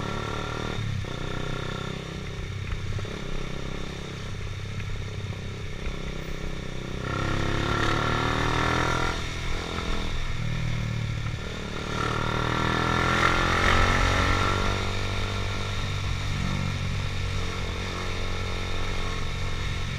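Motorcycle engine running on the move, with engine pitch and loudness climbing as it accelerates about seven seconds in and again about twelve seconds in.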